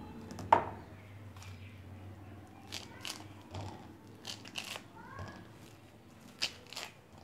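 Sweet lime rind being peeled off by hand, giving scattered small tearing and crackling sounds. About half a second in there is a single sharp knock, from the kitchen knife on the plastic cutting board.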